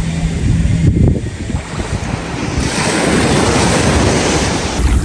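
Sea waves washing onto a beach, with wind buffeting the microphone; the surf hiss swells louder about halfway through.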